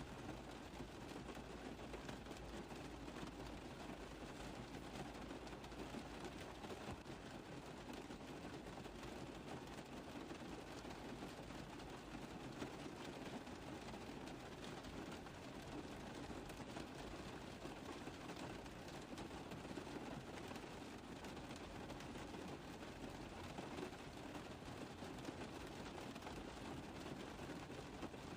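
Steady rain tapping on a car roof: a dense, even patter of drops that holds level throughout.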